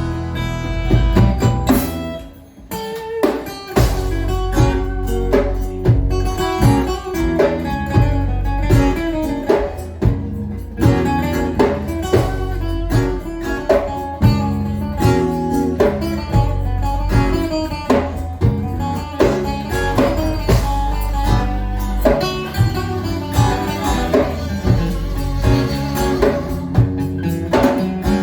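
Band playing an instrumental passage of a song: guitar over bass and drums with a steady beat, dropping away briefly about two seconds in before the full band comes back.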